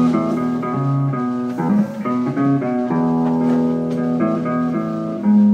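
Live band jamming: held chords that change every second or so, with a louder chord near the end.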